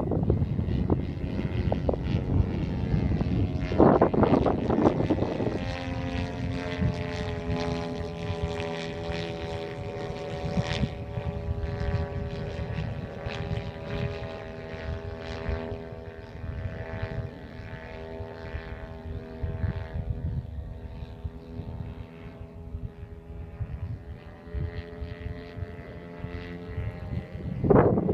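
Engine of a 33% scale RC model Piper Pawnee (JCV 120 turning a 27x10 propeller) in flight, a steady drone that slowly fades. Wind buffets the microphone about four seconds in and again at the very end.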